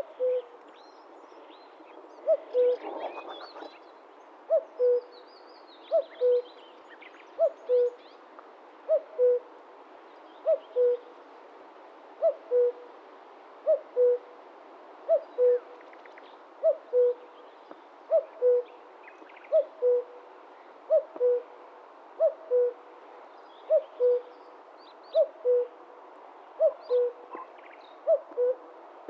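Male common cuckoo giving its two-note "cuck-oo" call, a higher note dropping to a lower one, repeated steadily about every one and a half seconds. Faint chirps of other birds sound higher up.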